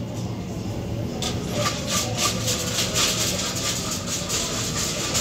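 Shopping trolley rattling as it rolls over a tiled supermarket floor, a fast run of clattering that starts about a second in, over a steady low background hum.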